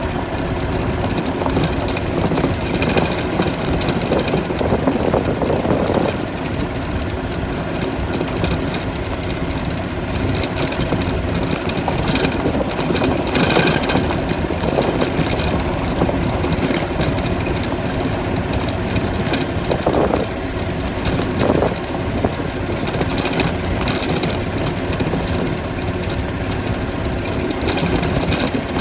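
Golf cart driving along a dirt road: its motor drones steadily, with tyre and body noise and a few louder bumps and rattles along the way.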